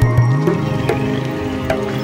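Instrumental background music with a low bass line and repeated struck notes over held tones.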